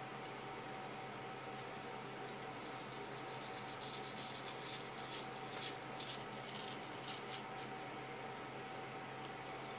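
Kitchen knife scraping along a wooden cutting board in a run of short strokes as it cuts the skin away from a raw isaki (chicken grunt) fillet, with most strokes in the middle seconds, over a faint steady hum.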